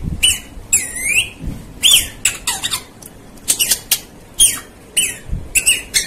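Rose-ringed parakeet giving a string of short, high squawks and chirps, about nine calls spread through the few seconds, some sweeping up and down in pitch.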